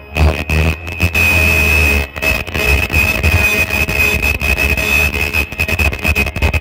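Non-woven shoe-cover making machine running: a steady high-pitched whine over a low hum, with rapid irregular clicking from its mechanism.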